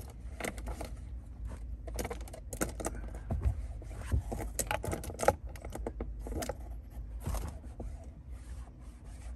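A paper towel wet with rubbing alcohol being wiped back and forth over the hard plastic center-console trim, giving a run of irregular scrapes and rubs. This is the cleaning step that preps the plastic for adhesive tape.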